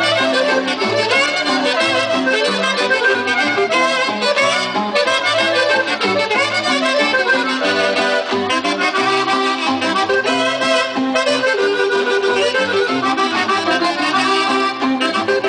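Northern-Mexican norteño dance music led by accordion, over a steady beat and a moving bass line, played through stage loudspeakers for a Tamaulipas folk dance.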